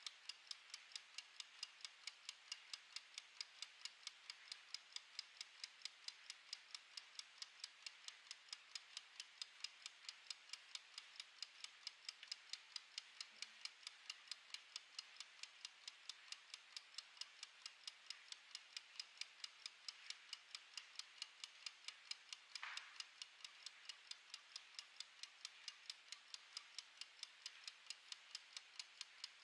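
Clockwork escapement of a mechanical wind-up kitchen timer ticking in a rapid, even rhythm, faint and steady as it counts down.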